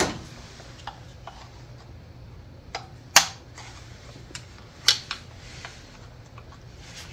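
A handful of sharp plastic clicks and snaps, about seven, spaced unevenly with the loudest about three seconds in. They come from fuel injector electrical connector locks being popped off with a pick tool.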